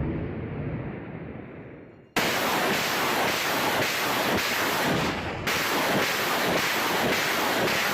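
BM-21 Grad rocket launcher firing a salvo: the rumble of a launch fades over about two seconds, then a loud, rushing roar of rockets leaving the tubes cuts in suddenly, pulsing about twice a second, with a brief dip near the end.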